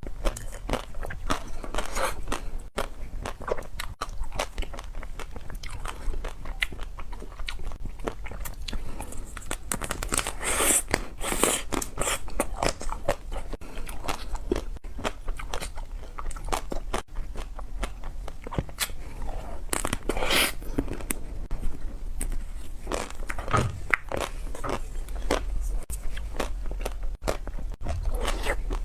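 Close-up biting and chewing of chocolate-coated ice cream bars: the crisp chocolate shell cracks in many short, sharp crunches, with wet chewing between bites.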